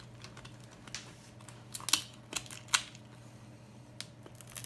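Crisp baked flour-dough crust crackling and snapping as it is broken open by hand and with kitchen scissors: a handful of sharp, irregular cracks.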